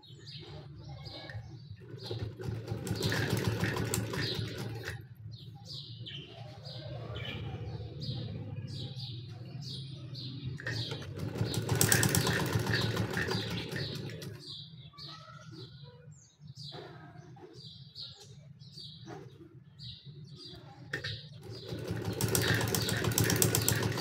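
Sewing machine stitching in three short runs, its needle mechanism clicking rapidly during each run, with pauses while the fabric is repositioned.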